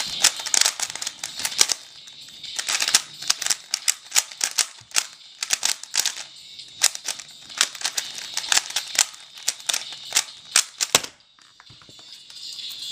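A Rubik's brand 3x3 cube being turned fast: rapid runs of plastic clicks and clacks as the layers snap round, with short pauses between runs, stopping about eleven seconds in.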